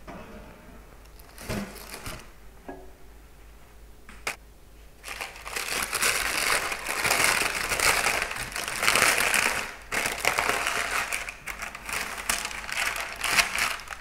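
A hot, freshly baked sandwich loaf being worked out of its bread tin: a couple of light knocks, then from about five seconds in a long stretch of crinkling and scraping.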